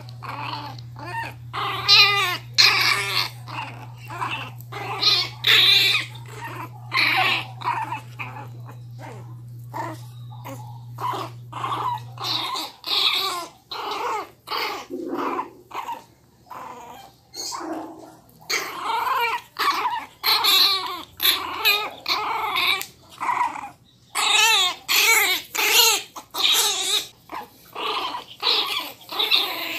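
Miniature pinscher puppy growling and yapping in a rapid string of short, snarling bursts, the sound of an agitated, angry puppy.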